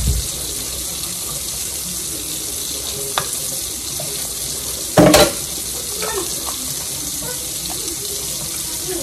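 Kitchen faucet running steadily into a sink. A small click comes a little after three seconds, and a louder sharp knock about five seconds in.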